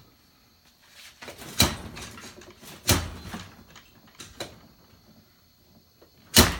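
Hard parts knocking and clacking as they are handled, with several sharp clacks: one about one and a half seconds in, one at about three seconds, softer ones around four seconds, and the loudest near the end, with light handling noise between.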